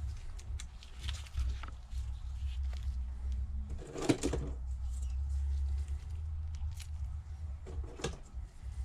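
A steady low hum with a few brief knocks and rustles of handling, the loudest about four seconds in.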